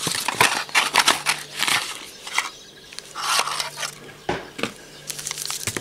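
Cardboard box and clear plastic packets of an egg-dye kit being handled: crinkling and rustling in bursts, with a few sharp clicks near the end.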